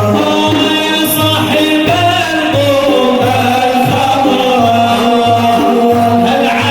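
Sufi devotional praise song (madih) for the Prophet sung in Arabic over a steady drum beat, about two beats a second.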